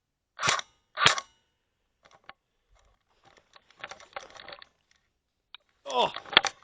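Two sharp shots from an airsoft gun about half a second apart, followed by faint scuffing and clicking, and a short shout of "Oh!" near the end.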